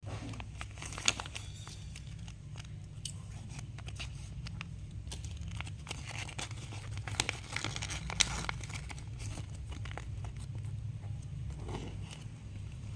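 A blind-bag's plastic packaging being crinkled and torn open by hand, scattered crackles and rustles with a few sharper snaps, over a low steady hum.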